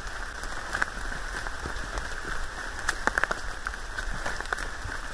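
Heavy rain falling steadily, with scattered nearer drops tapping and a quick cluster of taps about three seconds in.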